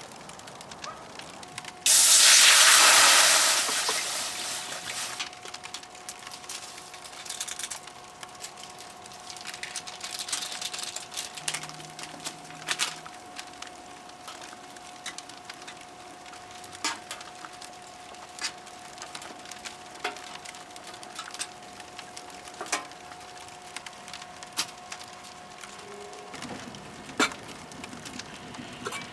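A loud hiss starts about two seconds in and fades away over the next few seconds, followed by scattered sharp crackles of a wood fire in a wood-burning stove.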